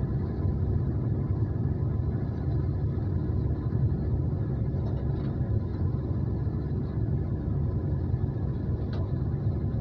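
Excavator's diesel engine running steadily with a low, even rumble.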